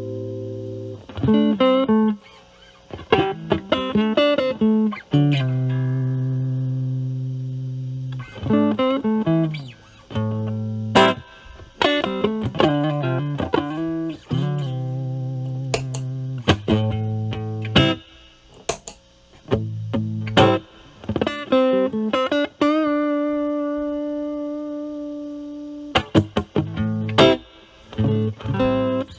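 Electric guitar, a Stratocaster with single-coil pickups, played through an Ibanez Super Metal mini distortion pedal with its drive at 8 and punch and edge at max, into a Marshall Valvestate's clean channel. It plays phrases of quick notes and held chords that ring out, with short gaps between phrases.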